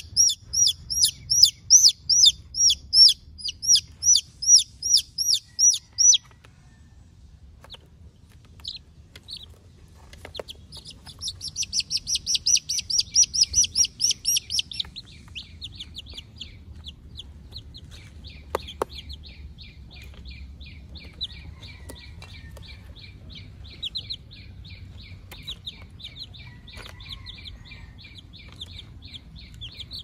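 Young chicks peeping: a loud run of evenly spaced, high peeps for about six seconds, another fast run of peeps around eleven to fifteen seconds in, then softer continuous peeping.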